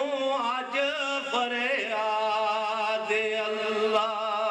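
A man singing a Punjabi devotional verse in long drawn-out notes: the pitch glides and wavers through the first half, then settles into one long held note from about two seconds in.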